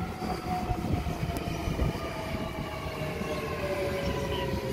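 Sydney Trains double-deck electric train moving along the platform close by: low rumble of the wheels with an electric motor whine whose pitch falls slowly and steadily as the train slows.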